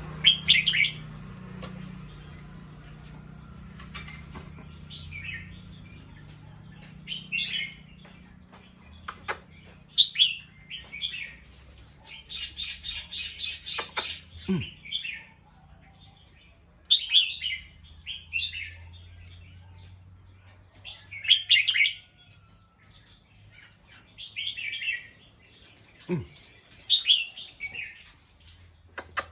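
A bulbul calling: short, bubbly whistled phrases repeated every second or two, with a quick chattering run of notes about twelve seconds in. A few sharp clicks and a low steady hum lie underneath.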